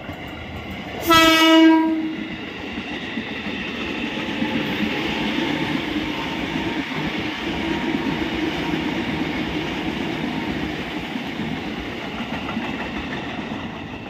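KRL Commuterline electric train sounding one short horn blast about a second in, then its wheels rumbling and clattering steadily on the rails as the cars run past, easing off near the end.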